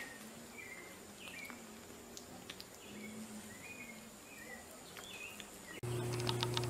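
Soft, short high-pitched chirps, about one every half second to a second, over a faint steady high whine. Near the end the sound cuts to a louder steady hum with fast ticking.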